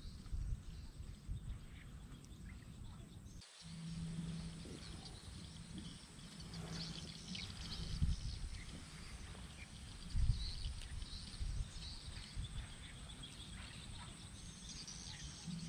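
Open swamp ambience: gusts of wind rumbling on the microphone, insects chirping high and thin, and a low hum that comes and goes. The sound changes abruptly about three and a half seconds in.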